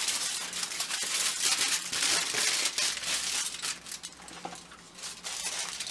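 A sheet of aluminium foil handled and crumpled by hand: dense crinkling crackle, loudest for the first three seconds or so, then fainter.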